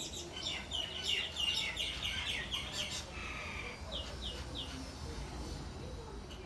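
A songbird singing: a fast series of high chirps for about three seconds, a short buzzy note, then three quick down-slurred notes about four seconds in.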